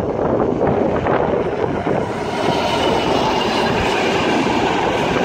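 A short freight train passing through the station, its loco and wagons running by with a loud, steady rumble of wheels on the rails.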